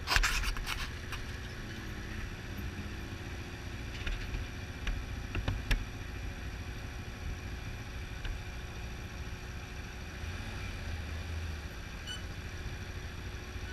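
Low, steady rumble of a vehicle moving slowly, with a loud clatter right at the start and a few scattered knocks and rattles.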